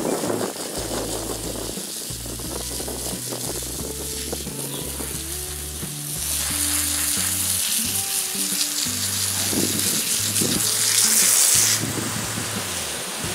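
Garden hose pistol-grip spray nozzle spraying water onto wet dirt, a steady hiss that grows louder about six seconds in and drops back near the end. Background music with low, steady bass notes plays underneath.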